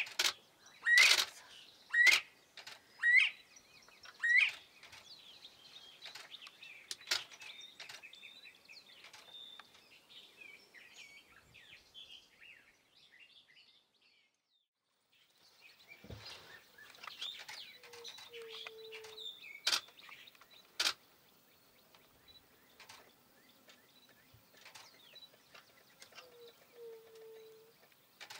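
Northern bobwhite whistling four loud rising call notes about a second apart, followed by fainter high chirping from other birds. After a brief near-silent gap come two short low notes, one near the end, and two sharp clicks.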